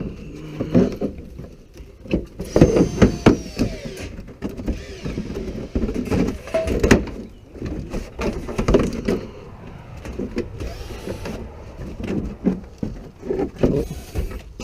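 Irregular knocks, clicks, rattles and scraping as a part of the truck is wiggled and pried loose by hand.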